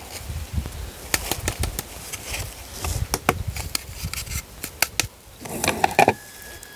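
Light, irregular clicks and taps as citric acid crystals are tipped off a plastic lid into a glass beaker. A brief rustle of handling comes near the end.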